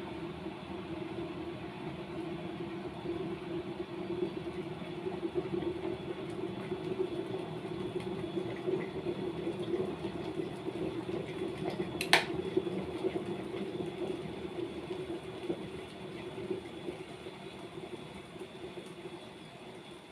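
Scarlett SC-EK27G12 electric kettle heating water to the boil, a rumbling bubbling that builds. About twelve seconds in, a single sharp click, the automatic switch-off at the boil, and the bubbling then fades away.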